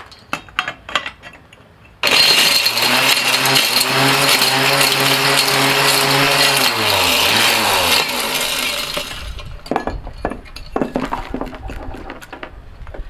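Mighty Mill ore crusher switching on about two seconds in and shredding plastic electronic connectors with a loud, rattling racket over its motor's steady hum. After switch-off it winds down in falling pitch and stops. There are light clinks of handled pieces before and after.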